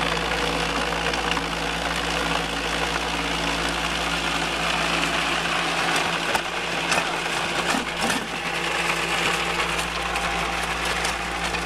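Homemade gold-prospecting shaker box running: a steady mechanical hum under the hiss of water spraying from a PVC spray bar onto the perforated deck. From about six seconds in, a shovel scrapes and clatters through loose rocks in a plastic tote.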